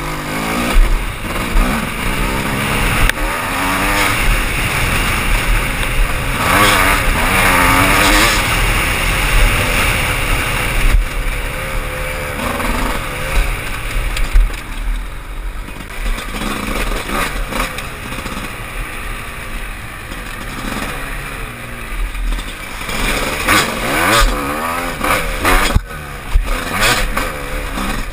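Dirt bike engine heard from the handlebars while riding, revving up and falling back again and again as the throttle is worked along a trail.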